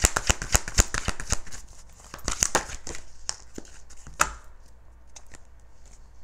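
Tarot deck being shuffled by hand: a fast run of card clicks for about a second and a half, a few more around two and a half seconds in, then a single sharp card snap just after four seconds.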